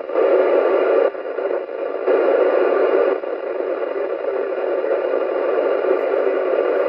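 Yaesu FT-991A transceiver's speaker hissing with open-squelch FM static on the ISS 70 cm downlink, no voice coming through. The hiss drops and rises in level a few times in the first three seconds, then holds steady.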